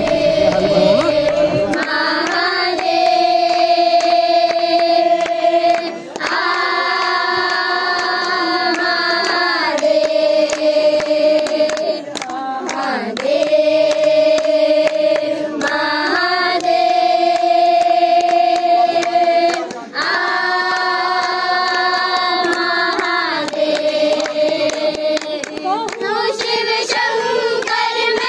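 Background music: a slow melody of long held notes, each lasting a few seconds, with short breaks between them.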